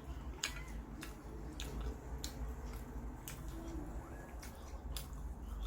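Close-up mouth sounds of someone chewing a sticky, chewy black sesame bread, with scattered sharp wet clicks and smacks.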